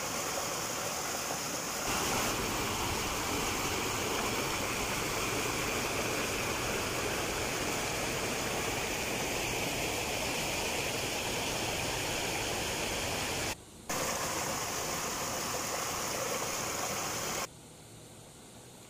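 Steady rushing of a river flowing over rocks. It cuts out for a moment about three-quarters of the way through and falls much quieter near the end.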